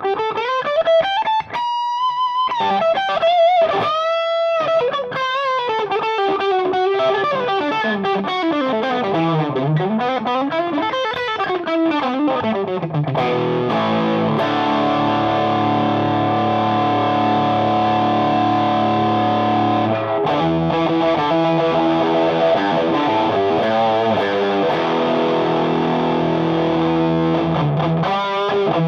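Electric guitar through a Ramble FX Marvel Drive overdrive pedal into a Marshall JVM's clean channel, giving a driven, Marshall-style tone. It plays a single-note lead with string bends and vibrato, then changes to held, ringing distorted chords about halfway through.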